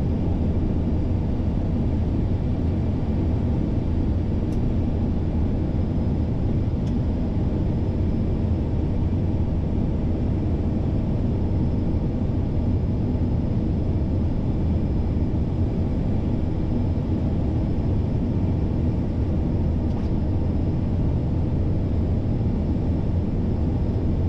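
Steady low rumble inside an Airbus A330-200 flight deck in flight: airflow and engine noise with no marked changes.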